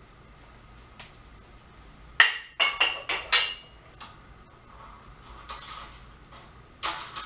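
Metal clanks from a light barbell and its small iron weight plates being handled: a quick run of four or five ringing clinks about two seconds in, a few lighter knocks, and another clank near the end.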